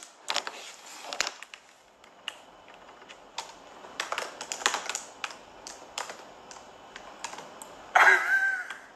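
Typing: irregular, quick clicks of keys or fingernails tapping, in uneven runs. Near the end a short voiced exclamation breaks in.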